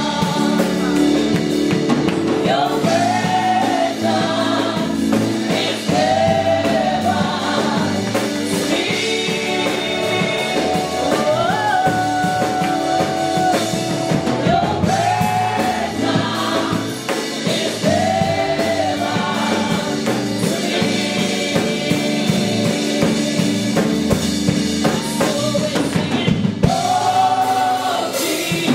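Gospel praise team of several singers on handheld microphones singing a worship song together, a woman's voice leading over the group, with steady instrumental backing.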